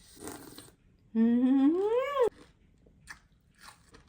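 A woman's long appreciative 'mmm', held at first and then sliding up in pitch before it cuts off abruptly, as she tastes a raw oyster. There is a short rustle just before it and a few faint clicks near the end.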